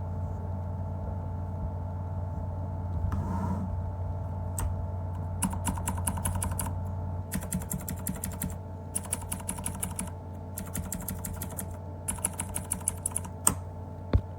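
Typing on a MageGee mechanical keyboard with clicky blue switches. A few scattered keystrokes come first, then from about five seconds in several quick bursts of clicking, each lasting about a second. A steady low hum runs underneath.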